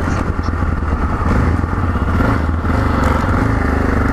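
Yamaha XT 660Z Ténéré's single-cylinder engine running at the start of a ride, its choppy beat evening out about halfway through.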